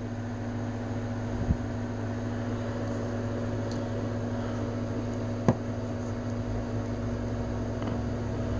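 Steady low room hum, with a soft thump about a second and a half in and a sharp click near the middle as a plastic action figure is handled and stood back up on a tabletop.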